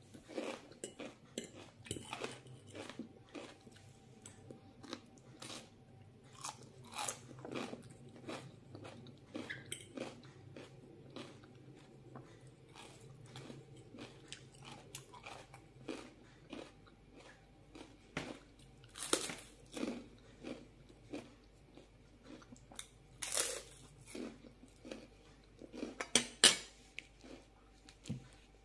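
Close-up mouth sounds of chewing and crunching on a crispy puffed rice cake topped with avocado, and salad. There are many small sharp crunches, with a few louder ones about two-thirds of the way in and near the end.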